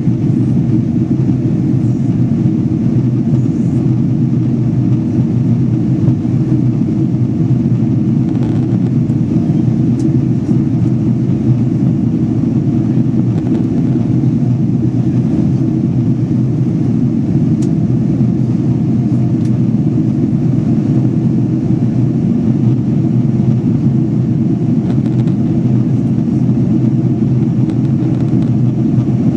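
Steady cabin noise of a jet airliner in flight, heard from inside the cabin: engine and airflow noise, mostly low in pitch and unchanging.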